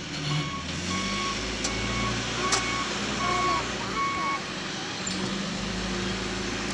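Backup alarm on the John Deere 310SG backhoe loader beeping about six times, under the steady running of its diesel engine; the beeps stop about four seconds in. A sharp knock comes about halfway through the beeping.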